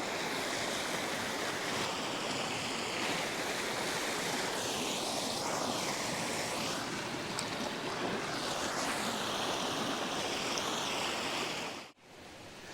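Steady rush of water from the Morpaeng Waterfall cascades running over rock, cutting off abruptly near the end.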